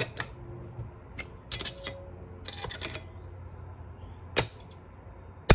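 Steel snap ring being worked around into its groove on a 4L60E clutch drum: scattered light metallic clicks, with two sharper clicks near the end.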